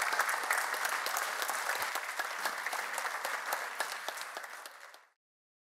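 Audience applauding, a dense patter of many hands clapping, thinning slightly near the end and cut off abruptly about five seconds in.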